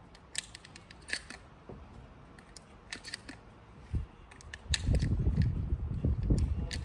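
Short metallic clicks from a Remington pump-action shotgun as shells are pushed into its tube magazine, about a dozen at uneven intervals. From just under five seconds in, a loud low rumble covers the last two seconds.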